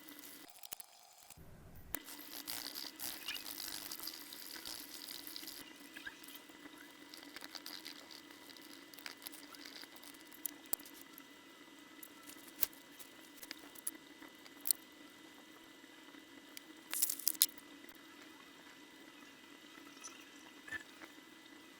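Faint running or pouring water for a few seconds, with scattered small clicks and taps throughout and a short cluster of louder clicks near the end.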